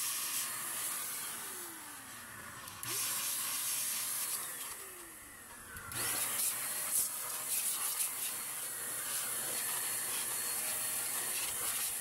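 DataVac electric duster blowing a steady hiss of air into a desktop computer case to clear dust, easing off briefly twice, about two and five seconds in, with its motor pitch dropping and coming back up each time.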